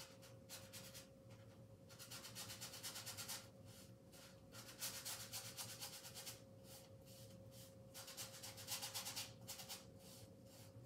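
Paintbrush scrubbing paint onto a large canvas in quick back-and-forth strokes. It comes in three spells, each a second or two long, with short pauses between.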